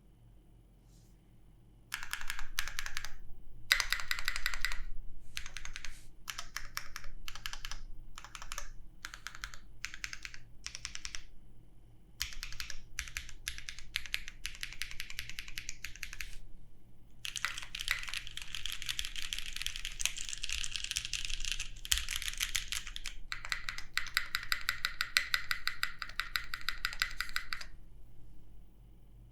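Typing on a GHS.JEM Blanc mechanical keyboard with lubed BuiltByNim linear switches in a carbon-fibre full plate, under GMK keycaps. The keystrokes start about two seconds in as short bursts of a few keys, then turn into fast, continuous typing in the second half, and stop shortly before the end.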